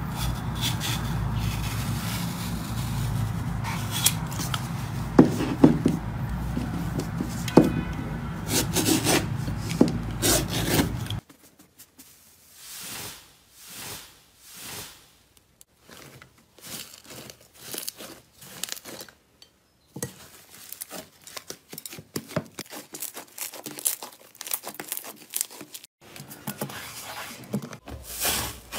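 A blade cutting through the thread wound on a spool: steady scraping and tearing over a low rumble, until a cut about 11 seconds in. Then slime being squeezed and pressed by hand: soft squelches swelling about once a second, followed by a run of small crackles and pops.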